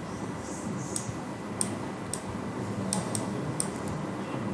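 Computer mouse clicking: a handful of short, sharp clicks, spaced irregularly and bunched toward the second half, over faint steady room hiss.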